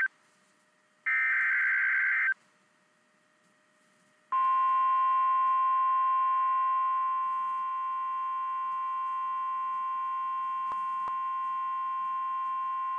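NOAA Weather Radio alert: a burst of SAME data screech ends at the very start and another sounds about a second in. After a short pause, the steady single-pitch warning alarm tone starts about four seconds in and holds. Together they signal that a National Weather Service warning, here a severe thunderstorm warning, is about to be read.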